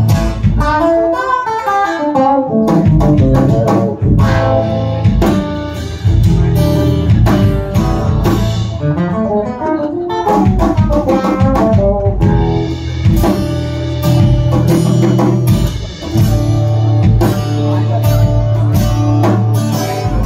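Live acoustic guitar played in quick picked runs of notes, with a drum kit keeping time under it.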